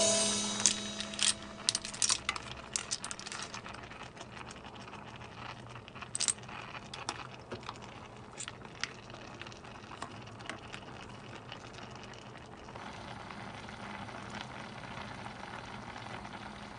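Cooked clam shells clicking and rattling against each other and the enamelled cast-iron pot as they are stirred, a dense run of clicks for the first few seconds, then scattered ones, over a steady hiss.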